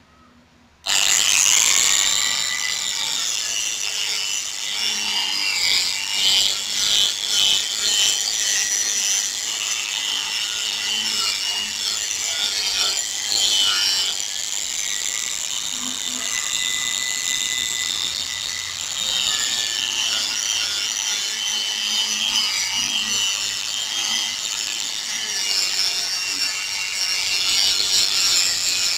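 Small power sander with a sandpaper disc wet-sanding a plastic headlight lens. It starts abruptly about a second in and then runs continuously, its pitch wavering as the pad works across the wet plastic.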